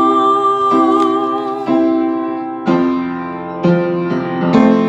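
A soprano voice holds the last sung note with vibrato over sustained piano chords. The piano then plays on alone, striking a new chord about once a second.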